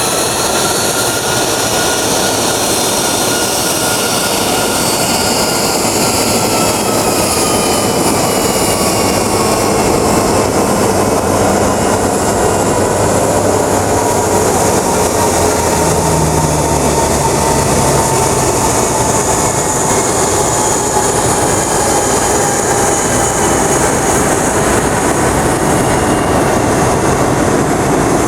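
Boeing 757-200 twin jet engines running at taxi power, a steady rumble with a high whine that slowly falls in pitch.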